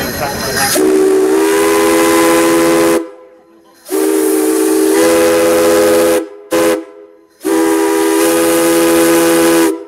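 Steam whistle on a small steam locomotive blowing a chord of several notes: three long blasts with a short toot between the second and third.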